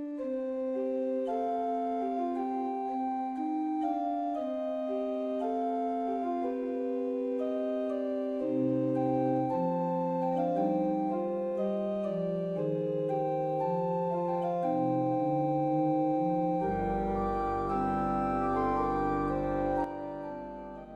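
Slow, relaxing instrumental music of long held organ-like keyboard notes moving in a gentle melody. A deep bass tone joins about three-quarters of the way in, and the music drops and begins to fade near the end.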